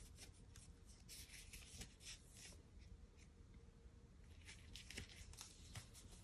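Near silence: room tone with faint, scattered soft ticks and rustles.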